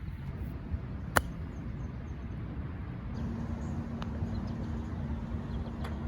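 A single sharp impact click about a second in, over a steady low outdoor rumble, followed later by a few fainter clicks; a faint steady hum joins about three seconds in.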